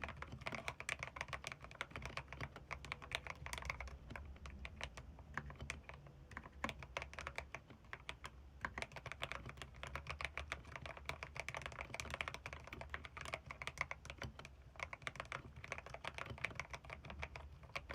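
Typing on a Ziyoulang K68 mechanical keyboard with red linear switches: a continuous, dense run of key clacks, several keystrokes a second.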